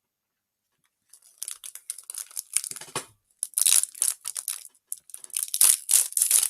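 Crinkly snack packaging being torn open and handled, a dense run of sharp crackles and rips starting about a second in.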